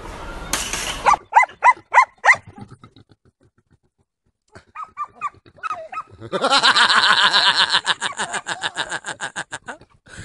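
Animal cries: a handful of short yelping calls just after a burst of noise cuts off about a second in. After a pause come a few more calls, then a rapid unbroken run of calls lasting about three and a half seconds.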